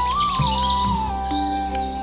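Background music with a slow melody over sustained tones, and quick high chirps above it.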